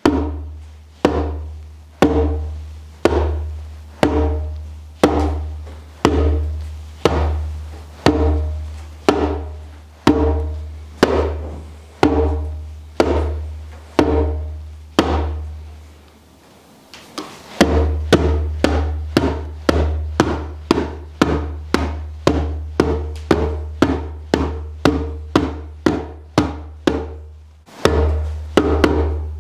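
Djembe bass tones ('dun'): a rawhide-headed djembe struck with flat open palms in the centre of the head, giving deep, evenly spaced strokes. They come about once a second at first, then after a short pause about twice a second.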